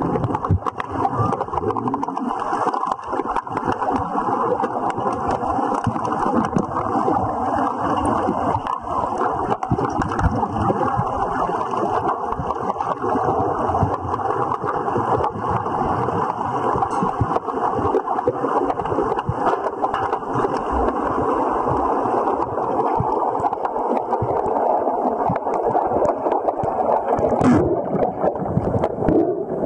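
Pool water churning and gurgling, with many small clicks and knocks running through it.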